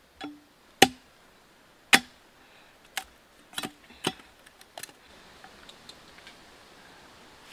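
A knife chopping a green bamboo stalk: about seven sharp, separate blows, the loudest two about one and two seconds in, with lighter ones up to about five seconds in.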